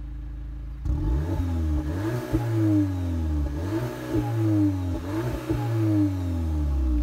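Volkswagen Polo GTI's turbocharged 2.0-litre four-cylinder heard at its stock exhaust tailpipe: idling, then revved four times, each rev climbing quickly and falling back toward idle.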